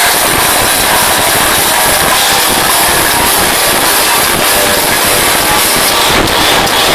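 Live heavy metal band playing loud, with distorted guitars and drums. The recording is overloaded into a dense, continuous wall of sound.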